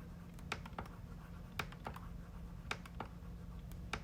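Scattered clicks from working a computer's mouse and keys while editing, about seven in four seconds at uneven spacing, over a low steady hum.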